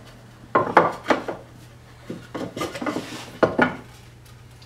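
Two hand-planed Spanish cedar boards handled on a wooden workbench: three clusters of knocks with wood scraping on wood as one board is set down and its edge butted against the other to test the glue joint.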